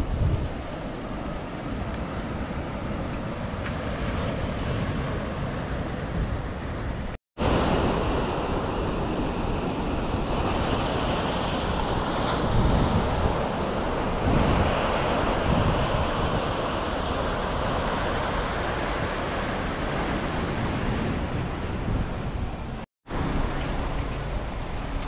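Wind rushing over the microphone of a camera on a moving bicycle: a steady rush with uneven low buffeting, broken by two brief drops to silence, about seven seconds in and near the end.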